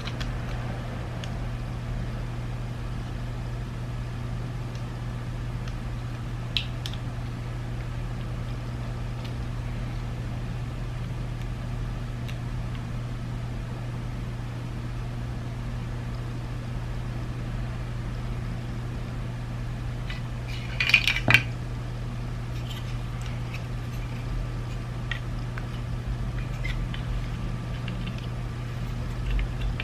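Small plastic clicks and taps from handling the parts of a BMW iDrive controller during reassembly. There is one click about six seconds in and a short cluster of louder clicks a little past the two-thirds mark. A steady low electrical hum runs underneath.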